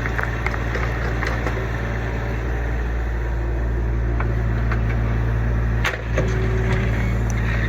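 Kubota U25 mini excavator's diesel engine running steadily under load, with scattered cracks and snaps from material breaking as the bucket digs out an old barn footing. One sharper crack comes about six seconds in.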